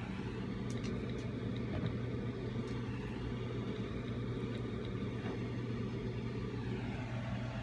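A steady low mechanical hum with a constant deep drone.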